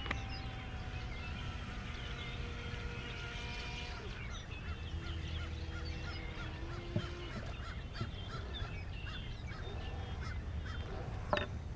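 Waterfowl calling by the water: many short chirps and honks overlapping, with a steady hum underneath for the first few seconds. Two sharp knocks near the end.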